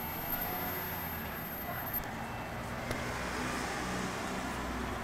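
Slow street traffic: cars and pickup trucks passing at low speed with their engines running steadily, and a few short clicks.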